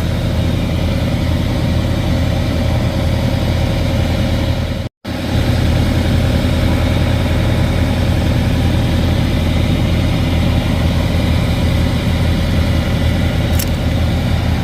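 Diesel engine of a Freightliner Cascadia semi truck idling, a steady low hum. The sound drops out for an instant about five seconds in.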